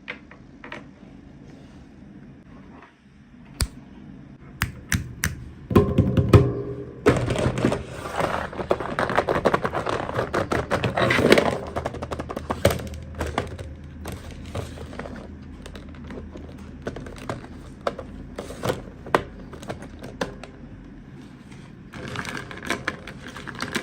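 Hands unboxing small plastic toys and their packaging, heard close up. For the first seven seconds there are scattered sharp clicks and taps, then a long stretch of dense rustling and clicking.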